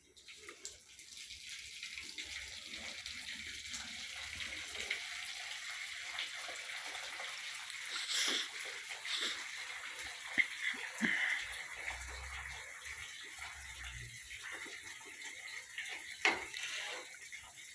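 Milk streams hissing into a metal pail as a desi cow is milked by hand. The hiss is steady, with a few faint ticks.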